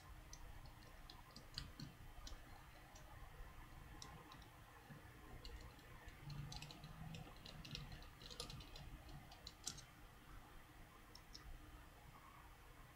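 Faint, irregular small clicks and ticks of a small magnetised Phillips screwdriver and tiny screws being worked into the phone, with a short cluster of clicks around the middle.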